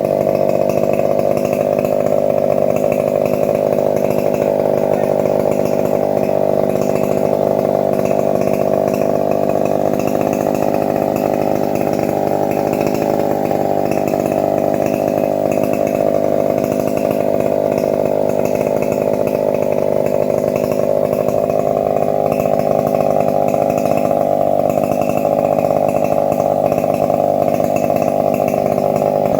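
Engine-driven saw running steadily and cutting teak wood, with no let-up.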